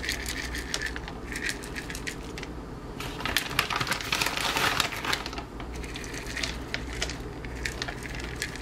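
Sunflower seeds shaken from a plastic measuring scoop onto salads in plastic containers, a scatter of light clicks and taps. Around the middle the plastic seed bag crinkles as the scoop goes back in for more. A steady low hum runs underneath.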